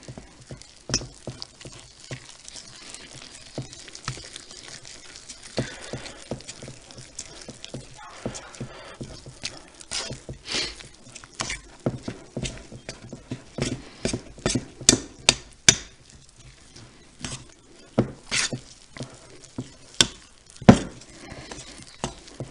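A metal spoon stirring thick biscuit batter in a mixing bowl: irregular clinks and knocks of the spoon against the bowl with soft scraping. The knocks come faster and louder about halfway through.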